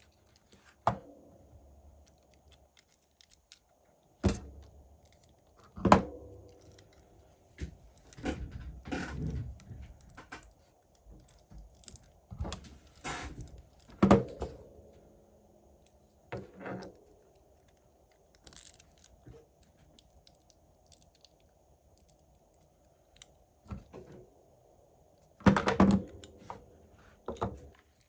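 Small hand tools and phone parts being handled and set down on a workbench: irregular clicks, taps and knocks, with a quick flurry of small clatter about a third of the way in and another near the end.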